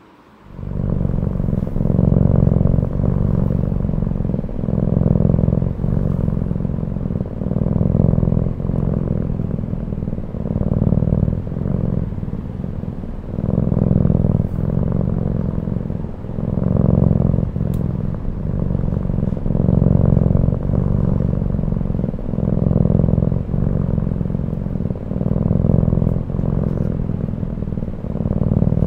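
Long-haired cat purring loudly while it sleeps, a low continuous rumble that swells and fades with each breath, about every two and a half seconds.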